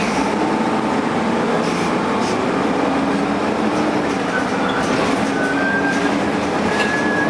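Dennis Dart SLF single-deck bus running with its engine cooling fan on: a loud, steady rushing noise over a low hum, with a high whine that comes in during the second half.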